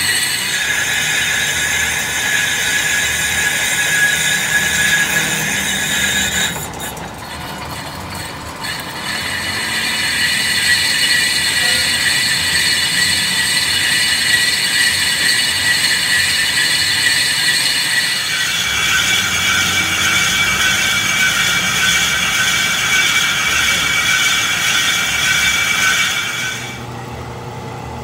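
Lathe boring tool cutting the inside of a spinning motorcycle wheel hub's brake drum, a steady high-pitched metallic squeal over the lathe running. The squeal drops out briefly about seven seconds in and again near the end. The drum is being bored out to take a sleeve for a loose brake.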